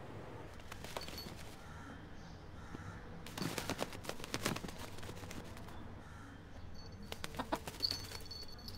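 White rooster flapping its wings in quick flurries of beats, once about three seconds in and again about seven seconds in, with a thin high note near the end.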